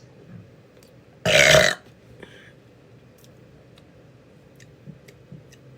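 A woman's single loud burp, about half a second long, a little over a second in.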